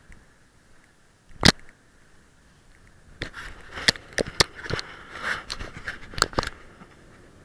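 Camera handling noise: a sharp knock about a second and a half in, then a run of clicks, knocks and rubbing close to the microphone for about three seconds.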